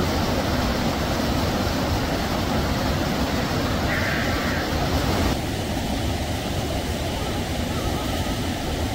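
Steady rushing noise with no distinct events. Its tone changes abruptly at a cut about five seconds in.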